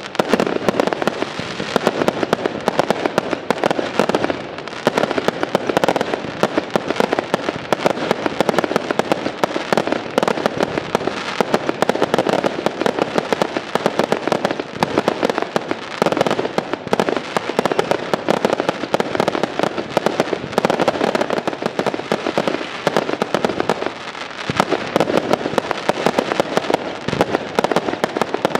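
Aerial fireworks display: a dense, unbroken run of bangs and crackles from bursting shells, many in quick succession.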